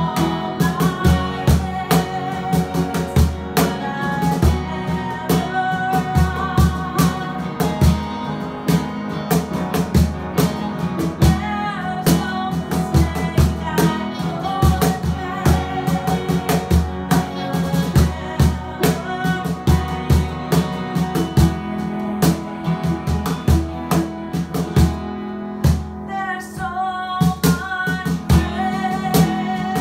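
Acoustic live music: a woman singing over a strummed acoustic guitar and a steady beat slapped on a Pearl cajon.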